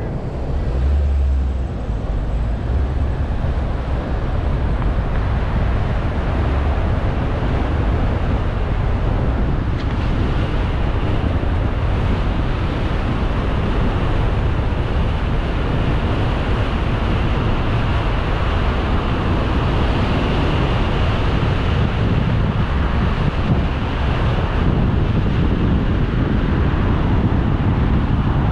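A car pulling away from a stop about a second in and then driving on: a low engine and road rumble under steady wind noise on the microphone.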